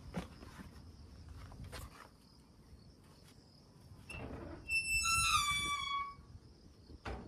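Footsteps, then the hinges of a metal door squeal as it is pushed open: one drawn-out squeak lasting about a second, falling slightly in pitch, followed by a knock near the end.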